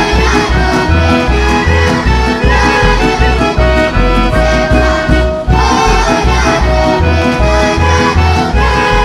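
Instrumental Serbian folk dance music for dances from Metohija, melody over a steady bass beat.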